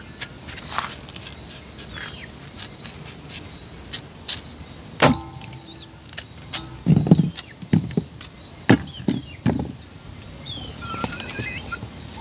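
Green bananas being peeled with a small knife: a string of sharp clicks and snaps as the blade cuts and lifts the peel, with a few dull knocks about midway.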